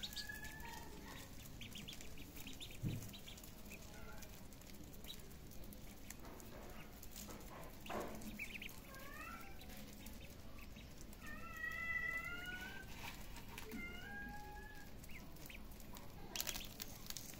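Ducklings peeping: thin, high whistled calls, scattered at first, then a run of longer, steadier peeps in the second half. A soft thump about three seconds in and a sharp click near the end.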